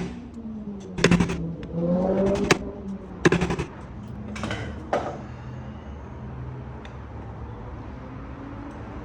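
Hammer tapping the screw heads on a geared e-bike hub motor, done before breaking the bolts loose so they don't strip: a few sharp metallic knocks in the first five seconds, then only a low steady background.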